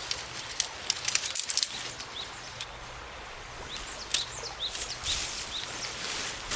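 Small birds chirping in short, quick calls, several in a row about four to five seconds in, over the steady rush of a creek, with a few sharp clicks or rustles close by.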